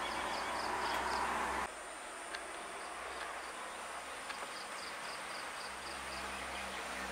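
Steady outdoor background noise that drops suddenly about two seconds in, with a high, rapid chirping of about five chirps a second in two short runs, one at the start and one past the middle.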